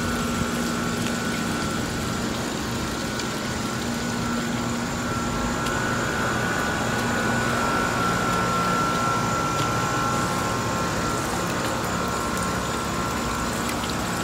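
Steady mechanical hum over a hiss, with a constant high whine; no sudden sounds.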